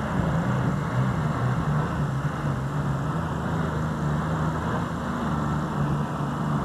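John Deere super stock diesel pulling tractor running at full power under heavy load as it drags the weight sled down the track, a steady low engine drone over a rushing noise.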